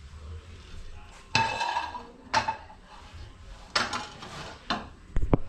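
Serving utensils and dishes clinking and scraping while food is spooned from a pot onto plates, in several separate clatters, some with a short metallic ring. A couple of dull thumps come near the end.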